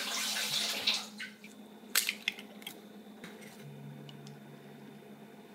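Eggs being cracked and separated over stainless steel bowls: a few sharp clicks and taps of eggshell against the bowl after about a second of steady hiss.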